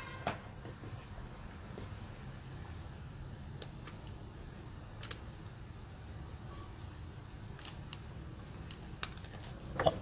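Night insects chirping steadily in a fast, even pulse over a low background rumble, with a few faint clicks and a louder knock near the end.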